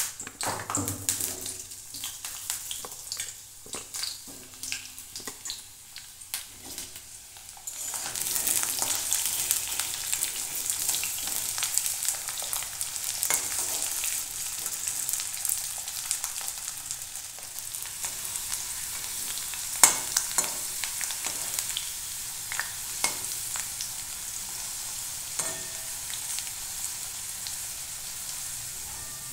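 Potato wedges placed one by one into a kadai of hot mustard oil, with scattered light knocks and clinks. About eight seconds in a steady sizzle of the potatoes deep-frying sets in, broken now and then by the scrape and clink of a metal spatula stirring them in the aluminium pan.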